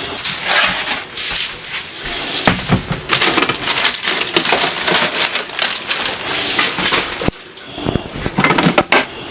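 Crackling, rustling handling noise with scattered clicks and knocks as containers and packaging are taken out of a refrigerator; it cuts off abruptly about seven seconds in, then resumes.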